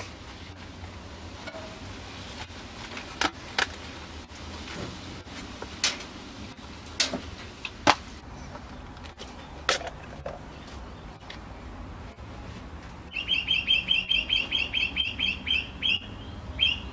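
Scattered light clicks and knocks of a knife being handled and slid into a leather sheath. Near the end, a bird gives a fast run of high chirps, about eight a second for some three seconds, then a brief repeat.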